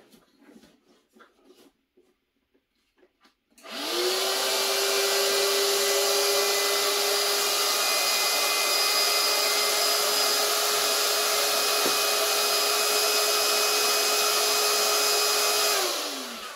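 Electric air pump switching on about three and a half seconds in. It spins up to a steady whine over a rush of air, runs for about twelve seconds, then winds down with a falling pitch as it is switched off. It is topping up the soft second air chamber of an inflatable boat.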